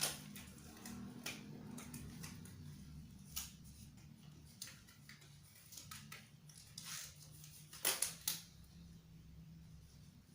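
Scattered light clicks and knocks of small objects being handled and set down, with two sharper clicks close together about eight seconds in, over a faint low steady hum.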